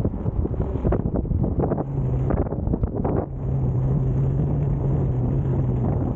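A Veteran Patton electric unicycle riding over a dusty dirt road: the tyre rolls over loose dirt, and wind buffets the microphone. There are a few knocks from bumps in the first three seconds. A steady low hum, likely the hub motor, comes in at about two seconds and holds from about three seconds on.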